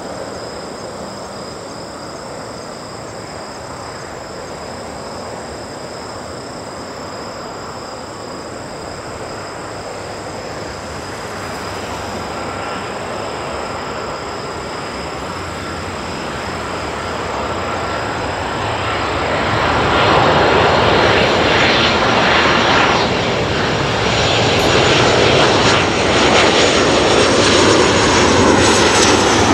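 Boeing 737-700's CFM56-7B turbofan engines on landing approach: a steady jet rumble with a high fan whine. It grows louder as the airliner closes in, loudest over the last third.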